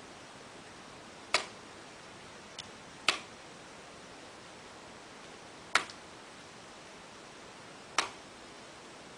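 Wildsteer Wild Tactic tactical knife chopping into the husk of a green coconut held in the hand: four sharp hits about two seconds apart, each dying away quickly.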